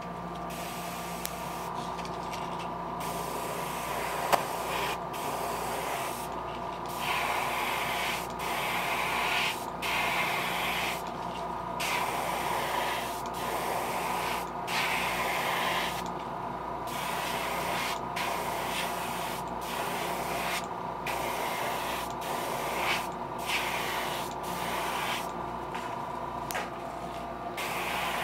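Airbrush spraying in repeated hissing bursts of a few seconds each, stopping briefly between them; the airbrush has just been fitted with a new tip and needle. A faint steady hum runs underneath.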